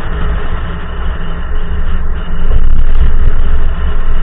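Straight-piped exhaust of a BMW E39 540i's 4.4-litre M62 V8 while driving, a deep low rumble that swells louder for about a second a little past halfway, then eases back.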